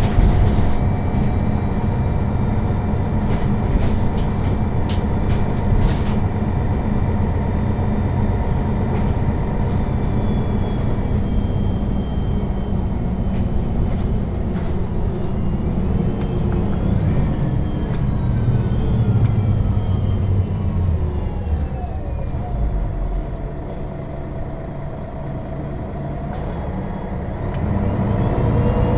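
Onboard sound of a 2001 MAN NL 263 low-floor city bus under way: the diesel engine and drivetrain run with a steady rumble, and a few clicks and knocks come in the first seconds. Around the middle a drivetrain whine falls in pitch as the bus slows and the sound drops for a few seconds. Near the end it rises again as the bus pulls away.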